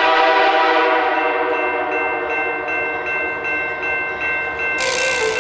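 A train horn sounds one long, steady chord of several notes at once. A loud hiss joins in near the end.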